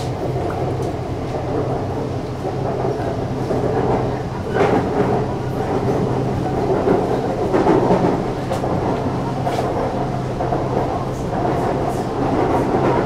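BTS Skytrain electric train running between stations, heard from inside the car: a steady electric hum over the rumble of wheels on the rails, with scattered sharp clicks from the track.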